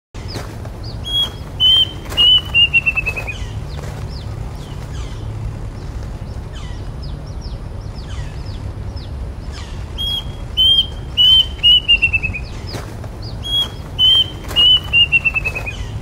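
Plaintive cuckoo singing three times: each phrase is a few clear whistles followed by a quick run of short notes falling in pitch. Other birds chirp faintly over a steady background hiss.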